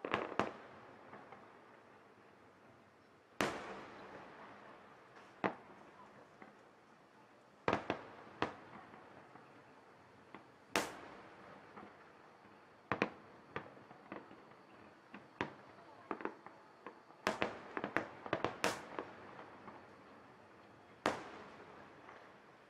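Aerial firework shells bursting one after another at uneven intervals, distant booms that each trail off in a rolling echo, with a quick run of bursts close together about three-quarters of the way through.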